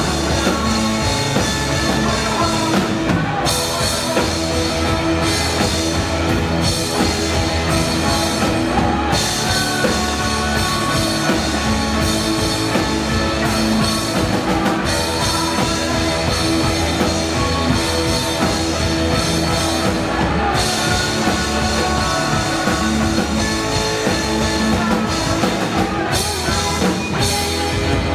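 A live rock band playing an instrumental passage: drum kit and distorted guitars, loud and continuous.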